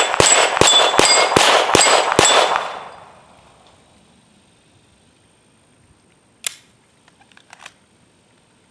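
Glock 17 9mm pistol firing six quick shots about 0.4 s apart at hanging steel gongs, the hits ringing the steel, the ringing dying away about three seconds in. A sharp click and then a few lighter clicks follow later.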